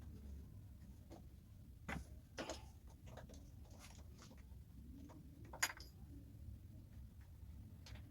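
A few scattered light clicks and knocks, the sharpest a little past halfway, over a faint low hum.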